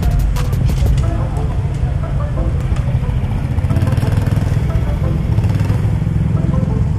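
Motorcycle engine running low and steady, with heavy low rumble on an action camera's microphone and a few sharp clicks in the first second.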